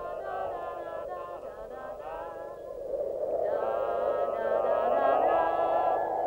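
Soundtrack music with a wavering, sung-sounding melody over a sustained backing, growing louder about three seconds in.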